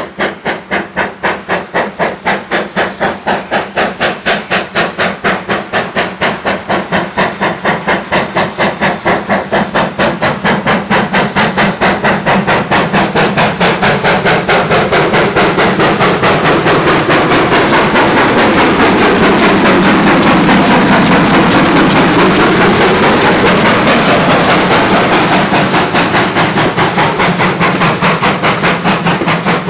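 GWR Saint class 4-6-0 No. 2999 'Lady of Legend', a two-cylinder steam locomotive, working hard with its train. Its exhaust beats quickly and evenly, growing louder as it approaches and passes about two-thirds through, then carries on as the coaches roll by.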